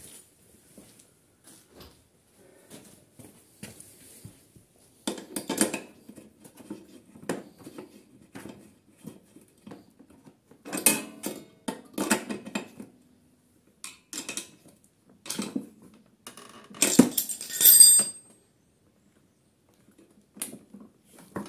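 Scattered clicks, knocks and rattles of hands handling plastic and metal parts on a Briggs & Stratton InStart lawnmower engine, with a brief metallic clatter near the end. No engine is running or cranking.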